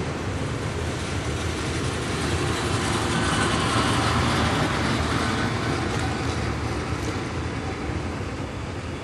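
Amtrak bi-level passenger cars rolling past close by, a steady rumble and clatter of wheels on the rails. It eases off slightly toward the end as the last car goes by.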